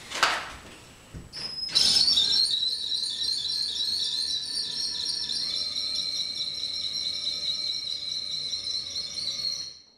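Battery drill driving a 3D-printed planetary-gear winch to hoist a kayak: after a knock at the start, a steady high-pitched motor and gear whine starts about two seconds in, steps up a little in pitch about halfway, and cuts off suddenly just before the end as the kayak reaches the top.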